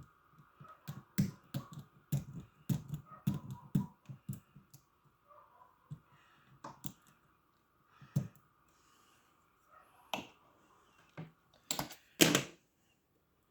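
Lock picks and a tension wrench working the pins of an old Russian dual-custody padlock: irregular small clicks and taps, bunched in the first few seconds and then scattered, with two louder clattering sounds near the end.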